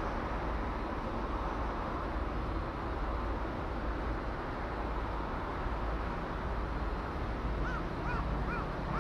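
A crow cawing four times in quick succession near the end, over a steady background of rumble and hiss.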